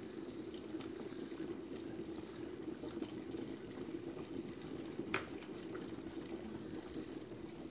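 Prestige stainless-steel electric kettle heating up: a steady low rumble with light crackling, and one sharp click about five seconds in.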